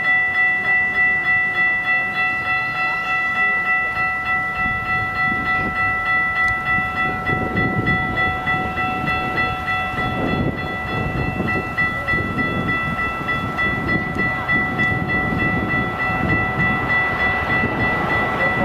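Railroad grade-crossing warning bell ringing continuously, a steady ring that pulses two to three times a second. Under it a passing train's wheels rumble and clatter over the rails, louder in the second half.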